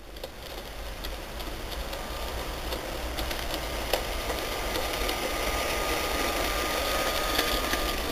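Motor and gears of a G-scale LGB model locomotive running with a thin steady whine, and light clicks from the wheels on the track. The sound grows louder as the small train approaches.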